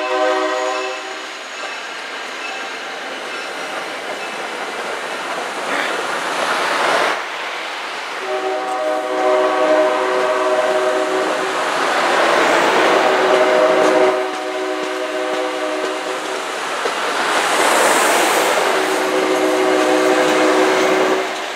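Commuter train's multi-chime air horn blowing the grade-crossing pattern: a long blast ending about a second in, another long blast, a short one and a final long one, over the steady rumble and clatter of passenger coaches rolling past.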